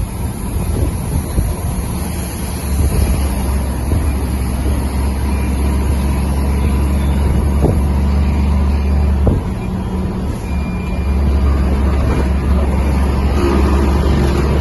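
Mercedes-Benz Atego 2425 truck's diesel engine running under way, a deep steady drone. It dips briefly about nine seconds in, then comes back louder.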